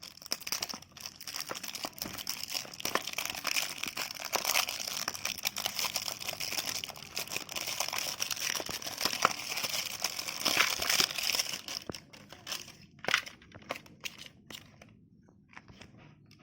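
Plastic packaging crinkling and rustling as it is handled and opened by hand. About twelve seconds in it thins out to a few scattered clicks and taps.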